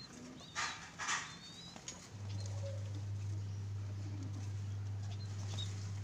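Caged turtle doves at the nest while an adult feeds its squab: two brief rustling flutters, about half a second and a second in, with a few faint high chirps. A steady low hum sets in about two seconds in.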